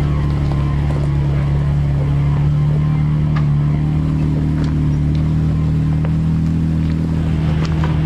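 Jeep Grand Cherokee Trailhawk's engine running at a steady low pitch while driving an off-road trail. A few faint clicks are scattered through it.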